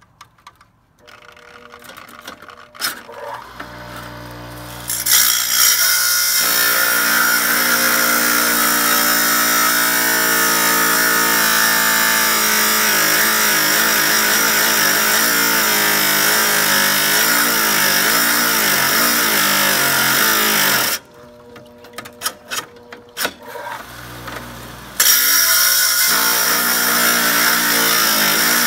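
Chicago Electric wet tile saw running, its blade grinding through tile with a loud, steady whine. The sound cuts out suddenly about three-quarters of the way through, leaving a few clicks, then comes back a few seconds later.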